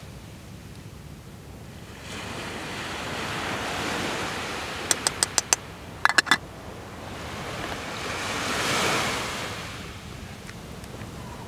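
Waves breaking on the shore, swelling twice. About five seconds in there is a quick run of light clicks, then a metal cookpot lid clatters down onto the pot.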